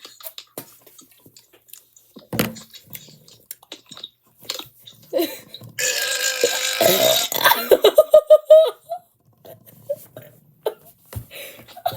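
A girl's long, loud belch starting about halfway through, rasping at first and then breaking into a fast rattling pulse before it stops, with a few faint clicks before it.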